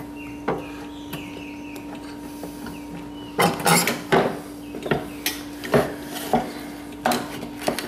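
Metal clunks and scrapes of a Kawasaki engine being shifted and pried on the mower's metal deck to line its crankshaft spline up with the drive pulley. A string of knocks starts about three and a half seconds in, over a steady hum.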